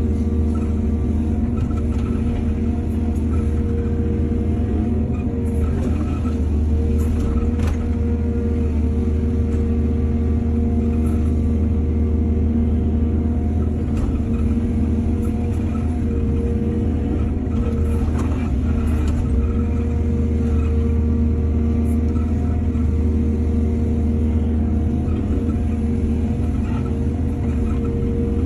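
Heavy diesel machinery running steadily at work: an excavator's engine drone with a low rumble, with a few short knocks and clanks now and then.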